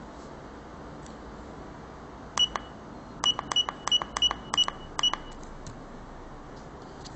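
Seven quick double clicks, each with a short high electronic beep, from about two and a half to five seconds in: button presses on a handheld electronic currency and document checker, its buzzer giving key-press feedback.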